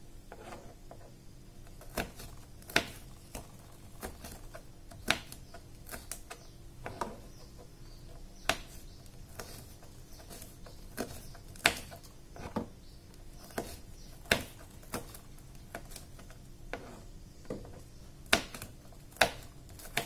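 Kitchen knife slicing red chillies on a plastic cutting board: irregular sharp taps of the blade striking the board, about one every half second to second.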